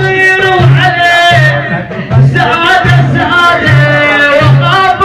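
Arabic song: a singing voice over a steady drum beat of about two strokes a second.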